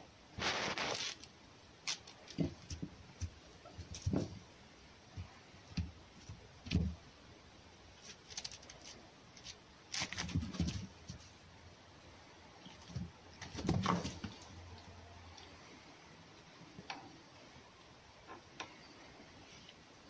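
A fox snatching a dead mouse and moving about on a straw-strewn floor: scattered short knocks and rustles, with louder scuffling about ten and fourteen seconds in.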